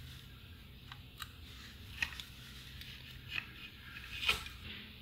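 Small clicks and scrapes of fingers working a replacement axial capacitor's wire leads into a transistor radio's circuit board: a few soft ticks spread out, the loudest a little before the end.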